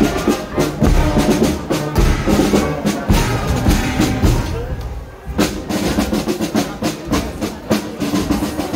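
Marching band playing a march with drums, the music of a miners' parade. The music is briefly quieter about five seconds in, then the band comes back in full.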